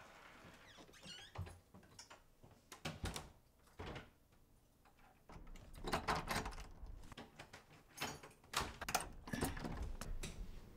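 Door knob and latch being handled: scattered clicks, knocks and rattles, the busiest stretches about six seconds in and again around nine seconds.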